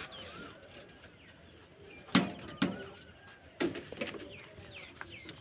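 Birds chirping and calling in short repeated notes, with three sharp knocks about two, two and a half, and three and a half seconds in.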